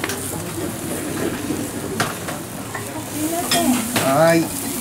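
Skewered eel fillets sizzling steadily over a charcoal grill, with a couple of sharp clicks. A brief pitched sound rises and falls near the end.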